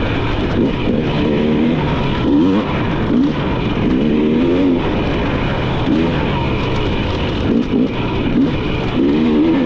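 Dirt bike engine under hard riding, revving up and dropping back about once a second as the throttle is worked through a trail section.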